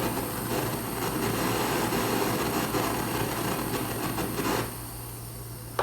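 Gas torch flame hissing steadily, heating the metal bending pipe used to bend the guitar's sides and kerfing, then cutting off suddenly near the end.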